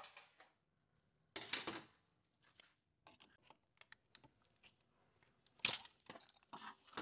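Light clicks and scrapes of a Ford 4R70W transmission's accumulator pistons and springs being worked out of their bores in the case by hand, with a short rustling scrape about a second and a half in and a sharper click near the end.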